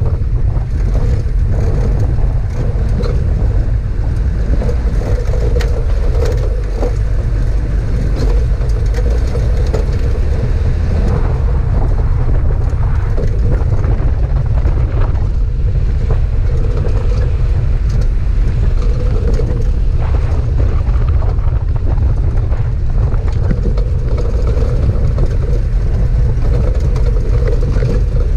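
Four-wheel-drive vehicle driving on a rough dirt track: a steady low drone of engine and tyres, with frequent small knocks and rattles from the bumpy ground.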